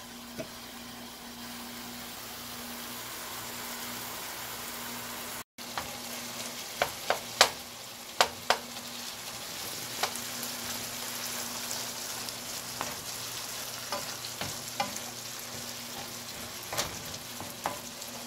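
Ground bison sizzling in a nonstick frying pan on high heat, with a wooden spoon stirring and tapping the pan in sharp clicks, most closely spaced around seven to eight and a half seconds in. The sound drops out briefly about five seconds in.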